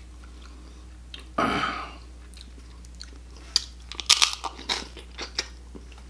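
Close-up eating sounds of a Dungeness crab claw: crunching, biting and wet chewing as the meat and the soft shell are bitten, in a dense run of sharp crunches in the second half. About a second and a half in there is a short noisy sound.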